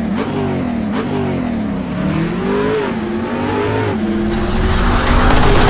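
Car engine revving repeatedly, its pitch rising and falling several times. It then holds steady while a rush of noise builds louder near the end, as an intro sound effect.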